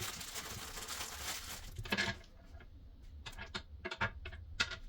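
Small plastic toilet-seat parts and screws being handled: a rustle, then a series of small clicks and taps.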